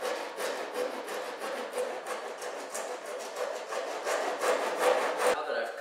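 A hand tool scraping and shaving wood in quick, even strokes, about three a second, against the edge of a cedar-strip canoe hull at the stem. The hull is being shaped flat so the outer stem pieces will sit against it. The strokes cut off about five seconds in.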